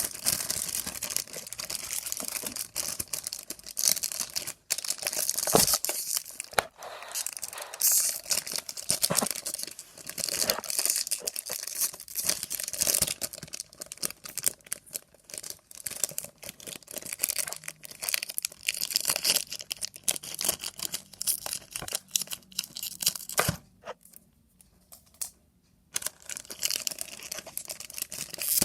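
Oreo cookie packaging being handled and torn open: wrapper tearing and crinkling in quick, irregular rustles, which stop for about two seconds near the end.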